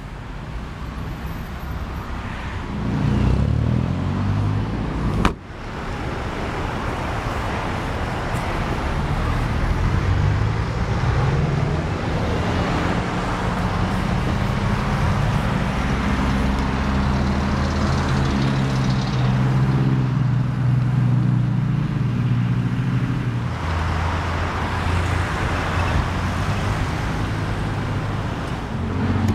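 Road traffic: engines of passing cars and trucks humming, their pitch slowly rising and falling as they come and go. A single sharp thump sounds about five seconds in.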